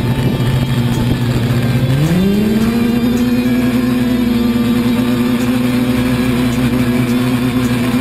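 Quadcopter motors and propellers whining steadily, then rising in pitch about two seconds in as the craft throttles up and lifts off the ground, holding at the higher pitch as it climbs.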